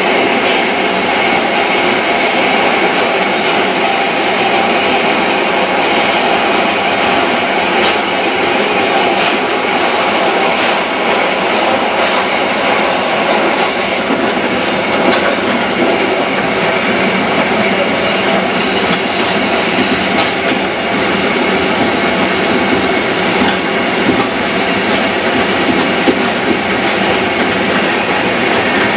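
New York City subway train running, heard from inside the car: a loud, steady rumble of wheels on rail, with scattered sharp clicks.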